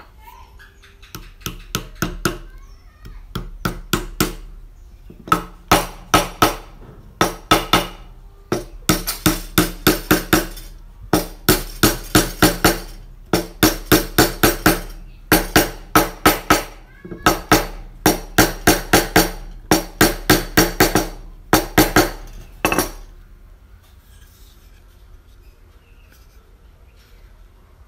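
A hammer driving small wooden wedges into a timber joint: runs of quick, sharp, ringing blows, several a second with short pauses between, stopping a little before the end.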